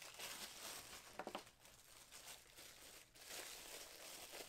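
Faint crinkling of a clear plastic bag as a lump of clay is handled and pulled out of it.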